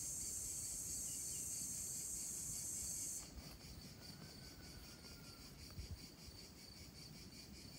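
Crickets chirping: a steady high trill that stops abruptly about three seconds in, leaving fainter pulsing chirps.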